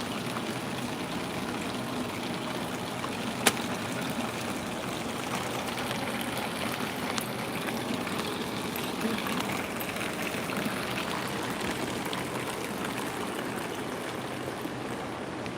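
Water running steadily, a continuous trickling rush. One sharp click sounds about three and a half seconds in.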